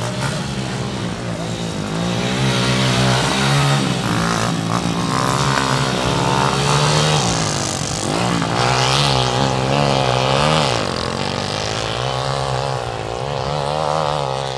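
Several small motorcycle engines racing on a dirt track, revving up and easing off so that their pitch keeps rising and falling as they pass.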